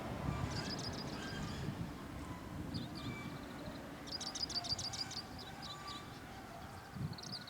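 Small birds chirping in quick trills, over the low rumble of a Tsugaru Railway train that fades as it moves away.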